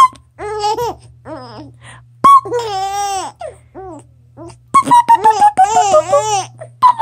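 Baby laughing in high-pitched bursts: a few short laughs, a longer drawn-out laugh about two and a half seconds in, then a quick run of giggles from about five seconds on.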